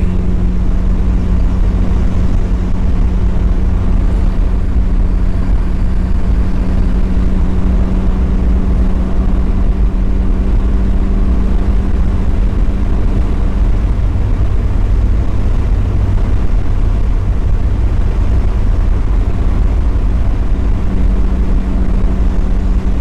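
Mazda Miata's four-cylinder engine running at a steady cruise, with road and wind noise rumbling underneath. The engine's steady tone drops away for a few seconds in the second half, then comes back.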